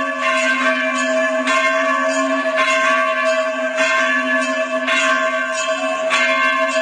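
Bell rung during a lamp aarti, struck about once a second, its ringing carrying on between strokes.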